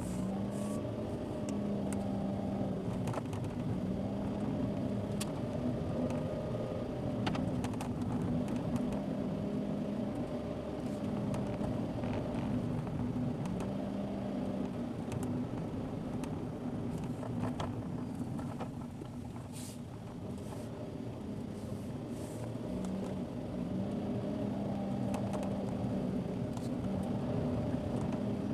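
Car driving steadily: engine hum and road noise as picked up by a dashcam, with a low engine note that fades in and out and scattered light ticks.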